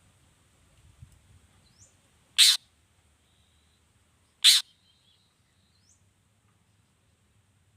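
Long-tailed shrike (cendet) giving two short, harsh calls about two seconds apart, with faint thin chirps and a brief whistle between them.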